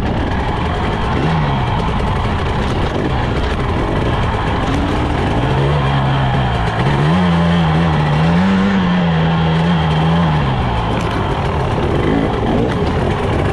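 Two-stroke single-cylinder engine of a Husqvarna TE 300i enduro bike running and revving on a rough trail, heard close up from a camera on the front fender over a steady rush of noise. Its note climbs and falls several times in the middle, from about six to ten seconds in.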